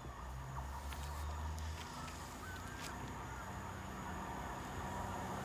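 Low drone of an approaching diesel train's engine, slowly growing louder, with a few faint bird calls over it.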